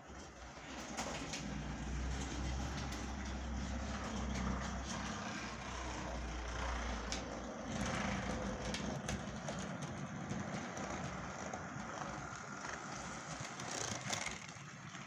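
Model train running on its track: a steady motor hum and wheel noise with scattered clicks, the low hum dropping away about halfway through.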